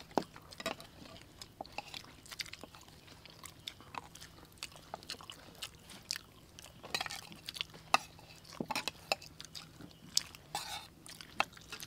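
People chewing and smacking their lips while eating chicken and curried rice: irregular short clicks scattered throughout.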